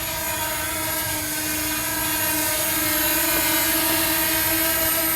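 DJI Mini 2 SE quadcopter's propellers whining in flight: a steady buzz of several held tones that grows gradually louder over the first few seconds.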